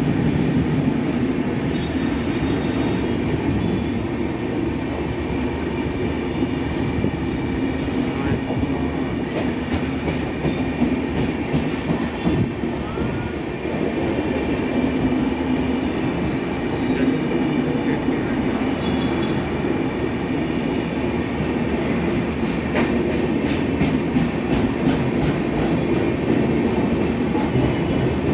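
Passenger train of LHB sleeper coaches rolling past at low speed: a steady rumble of wheels on the track, with repeated clicks as the wheels cross rail joints.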